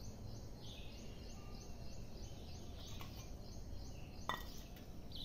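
Faint background noise with a quick, high chirp repeating about three times a second, and one sharp click a little after four seconds in.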